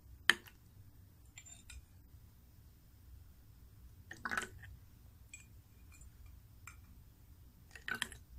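Quiet handling noises of a plastic bottle and a container of borax solution: one sharp click just after the start, then a few faint clicks, small chinks and light knocks.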